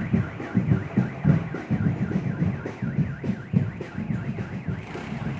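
Steady low drum beats, several a second, under a fast-warbling, siren-like tone that rises and falls several times a second.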